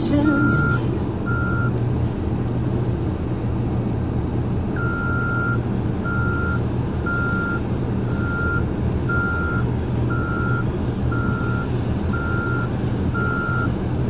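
Wheel loader's backup alarm beeping at one pitch about once a second, the sign of the machine backing up; the beeps stop about two seconds in and start again about five seconds in. A steady low engine drone runs underneath.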